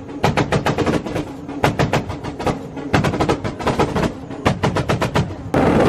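Turbocharged car engine revved in short blips, with a rapid fluttering chatter (the 'stututu' of compressor surge) on each throttle lift, in bursts about every second and a half. About five and a half seconds in it changes suddenly to a loud, steady run under throttle.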